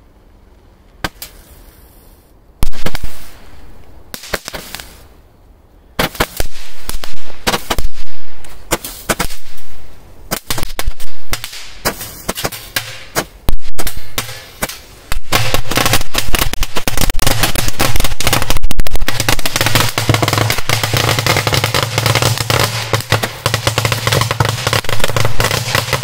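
A Roman candle firing a few separate shots, then strips of small firecrackers (firecracker 'machine-gun belts') going off inside a washing machine in a rapid crackling chain of bangs. The bangs become almost continuous in the second half.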